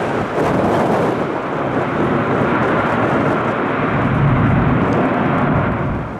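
Loud, steady jet engine noise from an airliner, with wind buffeting the microphone. It drops away suddenly near the end.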